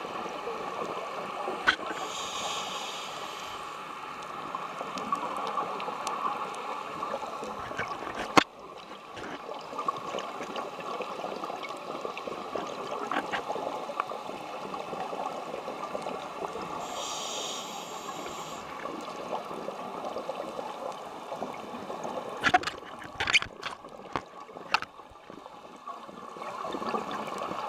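Steady underwater rush heard through a camera's waterproof housing, with three short hissing bursts of scuba exhaust bubbles from a diver's regulator, and scattered sharp clicks and knocks on the housing, most of them near the end.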